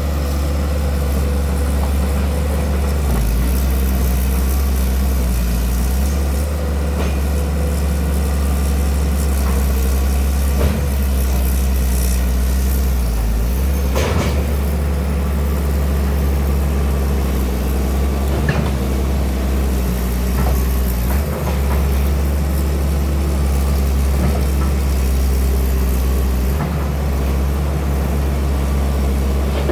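Excavator's diesel engine running steadily, its low note stepping up and down a few times, with a few short sharp knocks.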